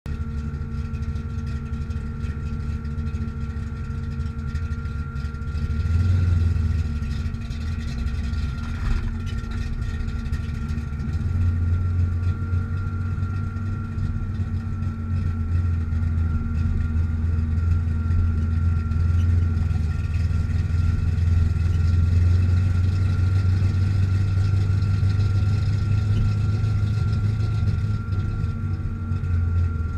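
Ford Mustang engine running at a steady idle, getting louder briefly about six seconds in and holding a somewhat higher, louder note from about eleven seconds on.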